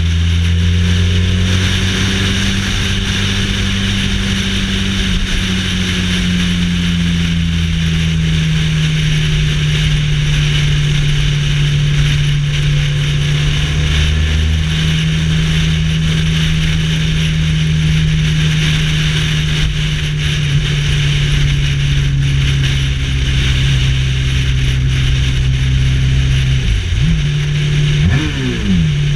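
Motorcycle engine running at steady freeway cruise, with wind and tyre noise. The engine pitch rises slightly and eases back early on, then dips and climbs quickly a few times near the end.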